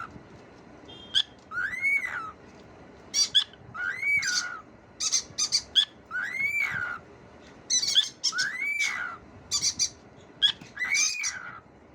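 Cockatiel whistling the same short arching phrase over and over, five times, each note rising and then falling, with short sharp chirps in between.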